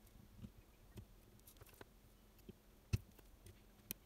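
Faint, irregular light ticks and clicks of a soldering iron tip and tweezers touching a small circuit board while desoldering a tiny resistor; the sharpest tick comes about three seconds in.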